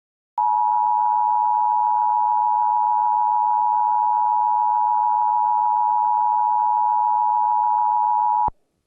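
Emergency Alert System attention signal: a steady two-tone beep held for about eight seconds, then cut off abruptly, announcing an emergency alert message.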